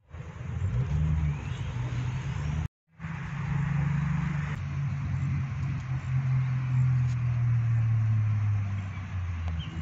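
Low, steady engine hum of a motor vehicle with a hiss over it, its pitch sinking slowly through the second half. The sound cuts out briefly about three seconds in.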